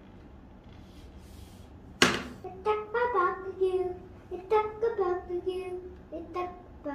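A sharp click about two seconds in, then a young child's voice singing in short, held notes.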